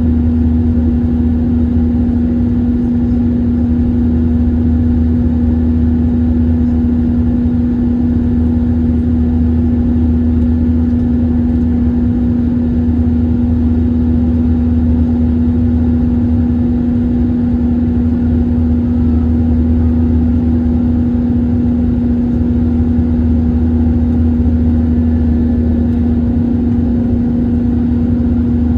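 Airbus A321-231's IAE V2500 jet engines running at climb power after takeoff: a steady, loud rumble with a constant low hum.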